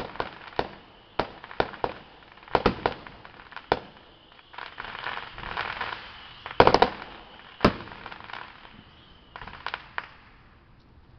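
Fireworks going off: a string of sharp bangs and pops at irregular spacing and of varied loudness, with a stretch of crackling about halfway and the loudest cluster of bangs about two-thirds in, tapering to a few quieter pops near the end.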